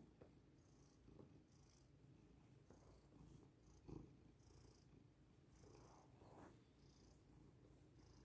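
Domestic cat purring faintly, close up, with a brief brush of fur against the microphone about four seconds in.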